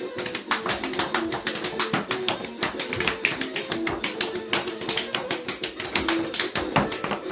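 Dance music with a fast, steady beat of sharp claps or taps, several a second, over a held tone.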